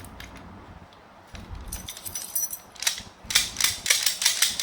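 Narrow-stile sash lock's mechanism clicking and clacking as it is turned, throwing its bolt in two turns. The clicks come quick and sharp, louder in the last second and a half.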